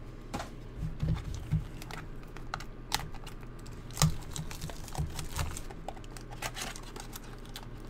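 Irregular light clicks and taps, with a few soft thumps, over a low steady hum.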